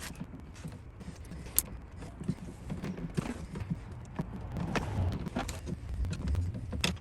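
Hand-work noise on the wall connector's wiring: scattered light clicks, knocks and scrapes of tools, hardware and wires being handled, with one sharper click about a second and a half in.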